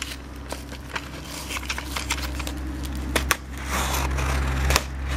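A knife cutting into a cardboard box, with irregular clicks and scraping as the box is handled and sliced, and a longer scratchy cut about four seconds in, over a low steady hum.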